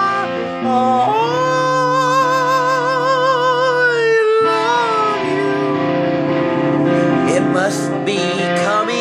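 A dog howling along to an electric guitar: long wavering howls that slide up and down in pitch, over sustained guitar notes.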